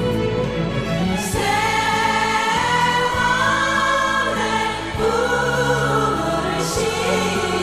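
Background music: a song with sung vocal lines over a steady accompaniment.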